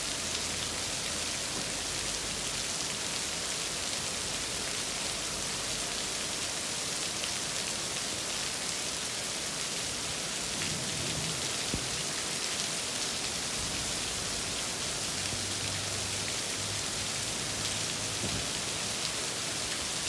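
Heavy rain pouring down: a steady, dense hiss of rain on the wet street and roofs.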